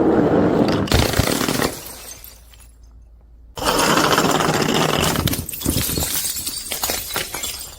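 Glass breaking and crunching in two bursts, a short one at the start and a longer one from about three and a half seconds in, the second trailing off into scattered crackles.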